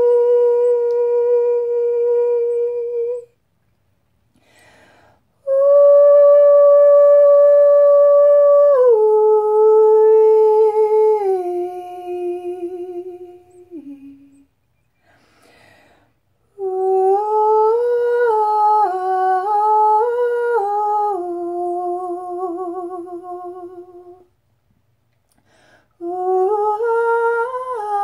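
A woman's voice toning wordless light language in long sung notes, in phrases separated by breaths. First a steady held note, then a held note that steps down in pitch. Then a wavering phrase that rises and falls, and near the end a new phrase that climbs.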